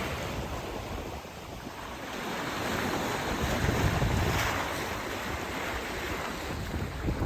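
Wind blowing on the microphone over the rush of open-ocean waves and water along a sailboat's hull under sail downwind. It eases briefly about a second in and swells again a couple of seconds later.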